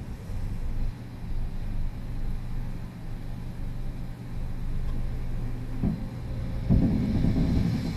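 Honda N-BOX stopped with the engine running, a steady low hum underneath. A brief creak sounds about six seconds in, then near the end a louder rapid creaking 'gi-gigigi': the abnormal noise the car makes while at a stop.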